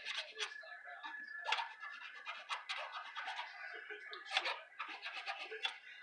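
Steel tool scraping and prying at a microwave oven transformer's core held in a vise: irregular metal scrapes and sharp clicks, with a couple of louder snaps about one and a half and four and a half seconds in.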